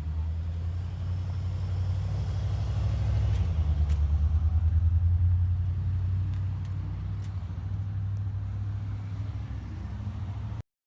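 A low engine rumble with a fast, even pulse that swells to its loudest about halfway through and eases off, cutting off abruptly near the end.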